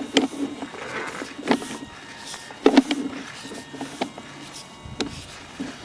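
Sewer inspection camera and its push cable knocking and clacking in the pipe: about five separate sharp knocks at irregular intervals, each with a short hollow ring.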